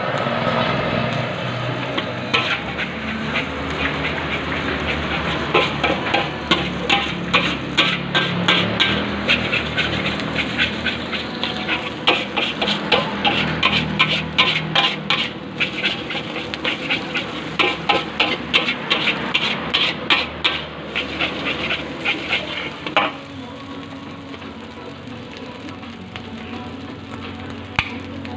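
Metal spatula scraping and clanking against an aluminium wok as fried rice is stir-fried, with the sizzle of frying underneath. The strokes come quickly and unevenly, two or three a second, and stop about 23 seconds in.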